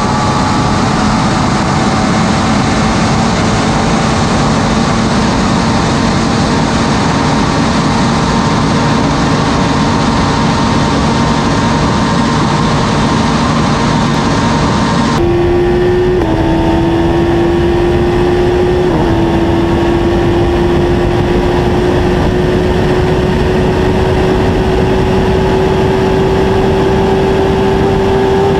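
Sport motorcycle engines running flat out in top gear at well over 300 km/h, under heavy wind roar. The engine note climbs slowly as speed builds. About halfway through, the sound cuts to a second bike with a higher, clearer engine note that also keeps rising.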